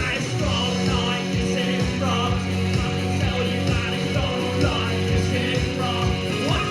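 A rock band playing live: guitars and bass over a steady drum beat.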